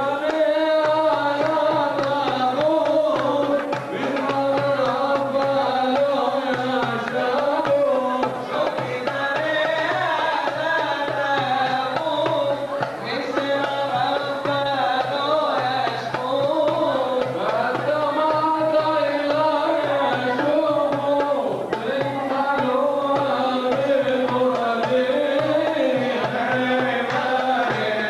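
A man singing a long, ornamented Middle Eastern-style chant, with a hand drum beating along.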